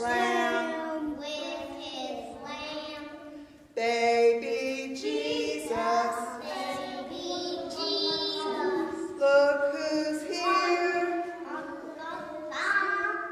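Young children singing a Christmas song in long held phrases, with a short break about four seconds in.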